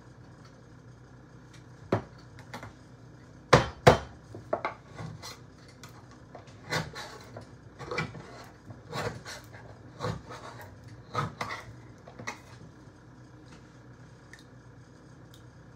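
Manual can opener worked around the rim of a tin can, a scraping click with each turn of the key about once a second. Before it come a few sharp knocks, the loudest pair about four seconds in.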